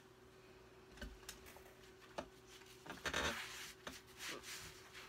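Faint handling of a compact eyeshadow palette: a few light clicks and taps, and about three seconds in a brief rub, fingertip on eyeshadow powder and skin as a shade is swatched.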